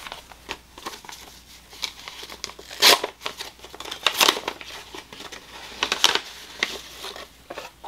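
Packaging crinkling and rustling as it is handled and opened, in irregular bursts, the loudest about three seconds in.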